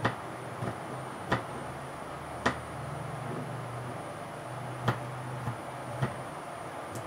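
Knife chopping on a cutting board: sharp single knocks at an uneven, unhurried pace, about one every second or two, over a steady low hum.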